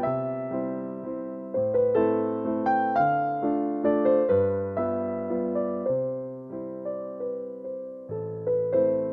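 Background music: a gentle piano tune with notes struck and left to fade, changing chord about every second.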